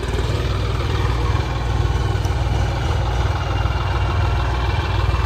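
Diesel engine of a modified John Deere tractor idling steadily.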